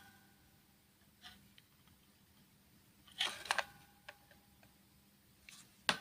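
Plastic clicks and rattles as the battery pack of a Midland Alan 42 DS handheld CB radio is unclipped and slid off the radio. The loudest cluster comes about three seconds in, with a sharp single click just before the end.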